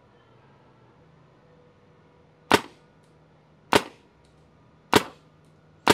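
Planet Eclipse CS3 paintball marker fired in single shots: four sharp pops of compressed air about a second apart, starting about halfway in. Each shot peaks around 77 dB on a decibel meter.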